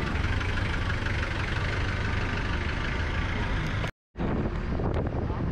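Street noise with a steady low rumble of vehicle engines. It drops out completely for a split second about four seconds in, then resumes.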